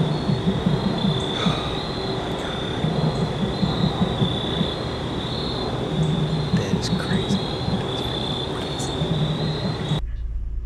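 Crickets or katydids chirping in a steady, evenly pulsing high trill over a loud, continuous low rumbling roar. The whole bed cuts off abruptly just before the end.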